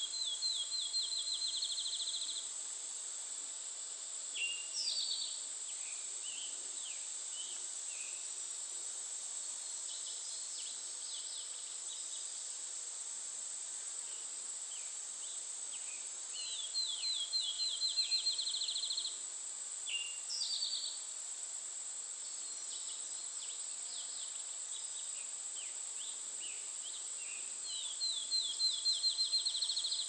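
A songbird sings a quick trill of about a dozen notes three times, at the start, about halfway through and near the end, with short scattered chirps between. Under it, a steady high-pitched drone of insects.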